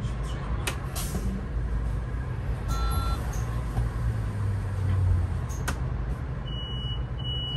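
Solaris Urbino 18 IV articulated city bus running, heard from the driver's seat as a steady low rumble that swells briefly about five seconds in. A short electronic beep sounds about three seconds in, and two short high beeps come near the end.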